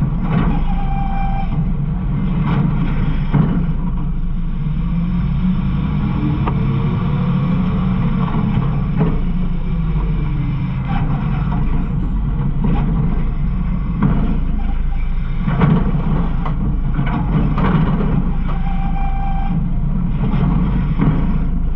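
Garbage truck running, heard from inside its hopper: a steady low drone of engine and hydraulics, with knocks and clatters coming and going at irregular times.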